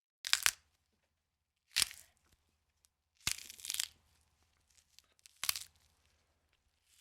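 Bone-cracking sound effect: four separate crunchy cracks about a second and a half apart, with silence between, the third one longer with several pops in a row.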